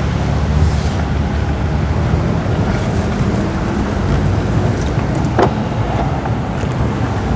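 Motor vehicle running while being driven, a steady low rumble of engine and road noise.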